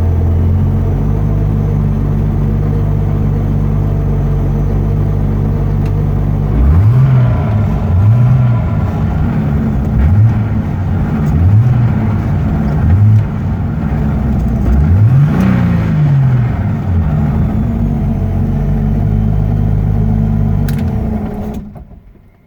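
BMW E30's turbocharged M30 straight-six idling, then blipped five times in quick succession and given one longer rev before settling back to idle, with a faint high whistle over it that the owner puts down to a vacuum leak. The engine sound dies away near the end.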